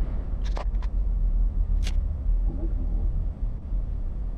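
Steady low rumble of a car's engine and tyres heard from inside the cabin while driving, with a few short sharp clicks about half a second in and another near two seconds.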